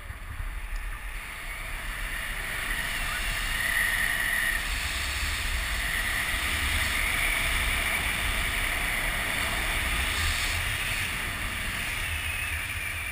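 Wind rushing and buffeting over the camera microphone of a tandem paraglider in flight. It swells louder a couple of seconds in while the glider banks steeply, then eases slightly near the end.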